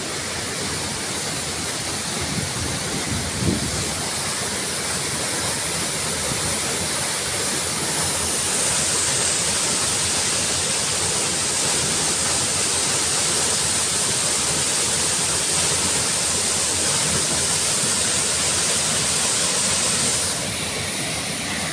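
Waterfall: a steady rush of falling water. The rush grows louder and brighter about eight seconds in and eases back near the end.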